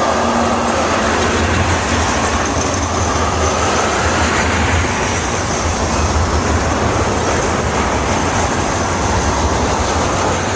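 Freight train rolling past: a steady, loud rumble and rattle of the cars on the rails, with a faint gliding squeal above it.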